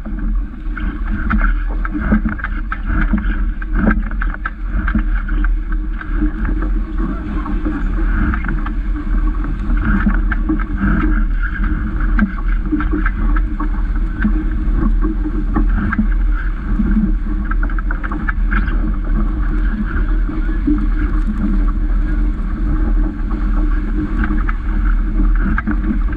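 Water rushing and splashing along the hull of a Vaucluse Junior sailing dinghy under way, with a steady low rumble of wind on the boat-mounted camera and scattered small knocks.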